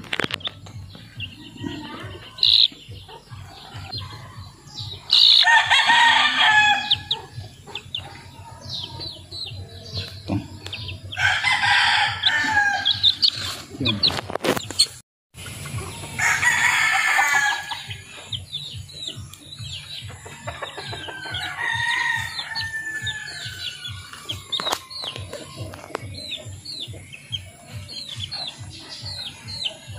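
Roosters crowing three times, each crow about two seconds long, over frequent short high peeps and clucks from young chickens.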